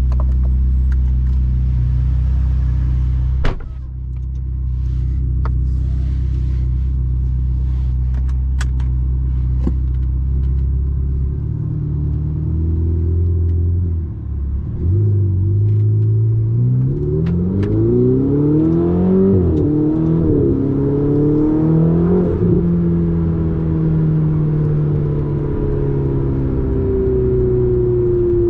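Ferrari 488 GTB's twin-turbo V8 with a Capristo exhaust, heard from inside the cabin: a steady low idle for the first ten seconds or so, with a single knock early in. It then pulls away, the revs rising and dropping several times, and settles into a steady cruise near the end.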